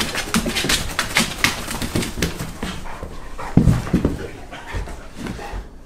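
Freshly bathed, still-wet dog scrambling, rubbing and rolling on towels over a wood floor, with rapid scuffling and a few heavier thumps about halfway through, and the dog panting.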